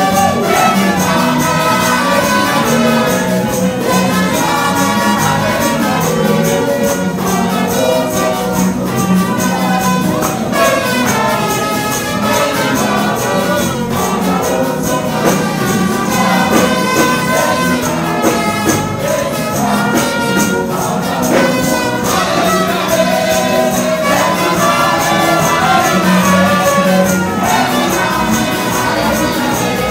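Church worship music: voices singing through microphones over instrumental accompaniment.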